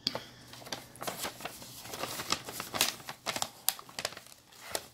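Brown paper gift bag being handled and opened by hand: an irregular string of paper crinkles and crackles.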